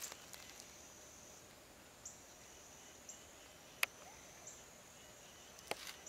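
Faint, steady high-pitched insect drone, with one sharp click about four seconds in and a couple of small clicks near the end.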